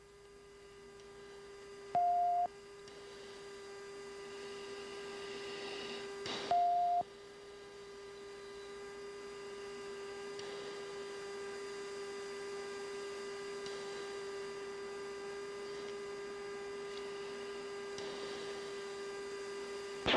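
Steady electronic tone in F-16 cockpit audio, swelling over the first few seconds and then holding, with two short, higher-pitched beeps about two and seven seconds in.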